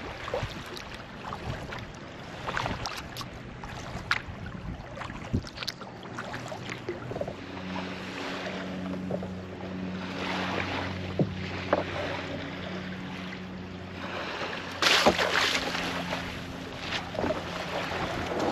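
Sea kayak coming into a gravel beach: water lapping and splashing around the hull in the shallows, under a steady low hum. About fifteen seconds in, a louder rush of splashing and scraping as the kayak is landed and hauled through the shallows.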